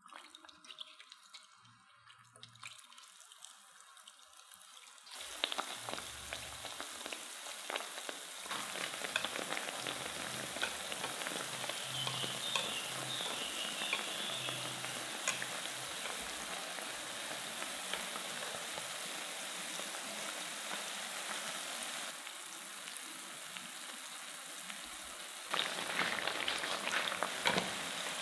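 Cornstarch-coated potato sticks frying in hot oil in a pan, a dense crackling sizzle that sets in about five seconds in and grows louder soon after. Near the end the crackling gets louder, with sharper clicks.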